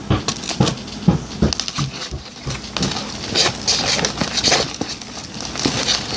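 Clear-glue slime being stirred with a fork in a plastic container: a quick, irregular run of sticky clicks and squelches, busier in the second half.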